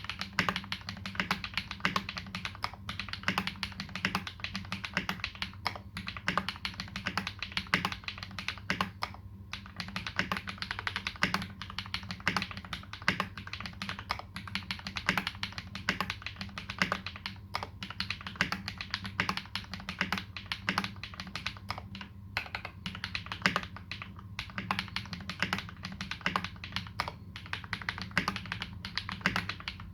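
Continuous typing on a KBD75v2 custom mechanical keyboard fitted with lubed Holy Panda tactile switches and GMK Dolch keycaps: a dense, uneven run of keystroke clacks with a few short pauses, over a steady low hum.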